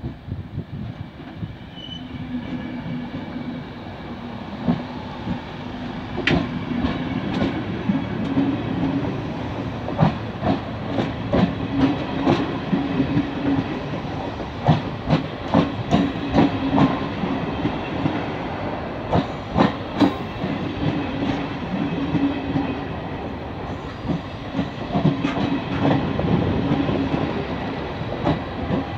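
Regional passenger train hauled by a Trenitalia E464 electric locomotive rolling past, its coach wheels clacking over rail joints again and again over a steady low rumble that builds during the first few seconds.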